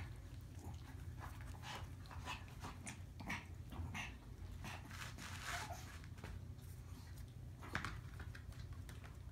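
A month-old Maltese puppy gives a few faint, short, high squeaks, amid light scratching and patter of small paws on a quilted puppy pad, over a steady low hum.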